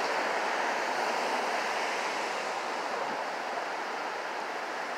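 Street traffic: the even rushing hiss of a car passing on the road, fading slowly as it moves away.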